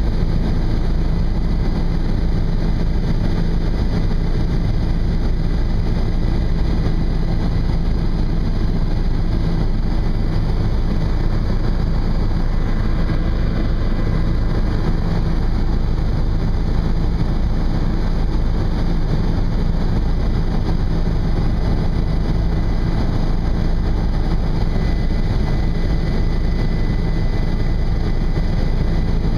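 Helicopter engine and rotor running at steady cruise: a constant low drone, heard from inside the cabin.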